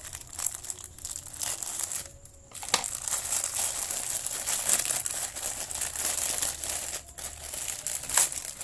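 White plastic courier mailer bag crinkling and rustling as it is handled and opened by hand, with a short lull about two seconds in and a couple of sharp crackles.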